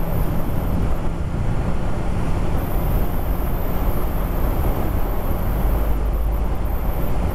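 Wind rush on the microphone over a motorcycle engine running steadily, at a constant cruise on an open road.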